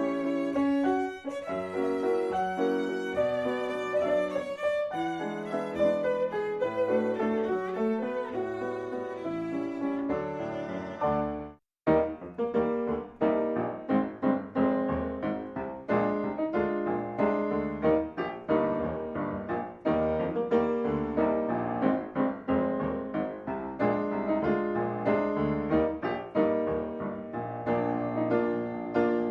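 Instrumental music led by a violin with piano accompaniment. It breaks off briefly about 12 seconds in, then resumes.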